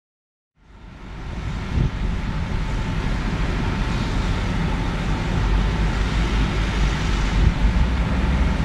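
A loud, steady mechanical rumble with a hissing edge, fading in about half a second in and then holding steady.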